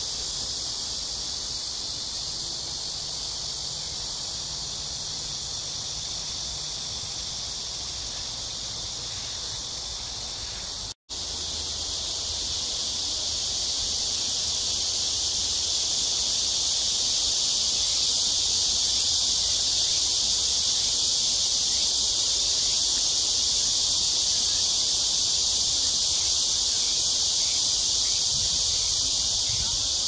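Chorus of many cicadas buzzing in a dense, steady high-pitched drone. The sound drops out for an instant about eleven seconds in, and the chorus is louder after that.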